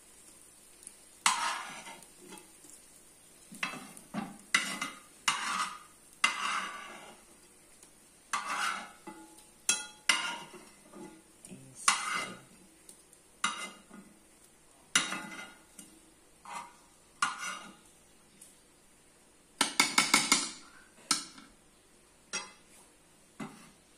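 Metal spoon scraping fried rice out of a frying pan of hot oil and knocking it into a metal pot, a scrape or clink about every second. About twenty seconds in there is a quick run of about five metal taps. The oil sizzles faintly underneath.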